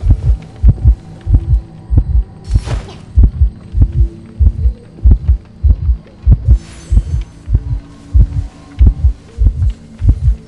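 A steady, loud, low thumping in close pairs, about one double thump a second, like a heartbeat. Two short hissy noises cut in, about a quarter of the way in and again past the middle.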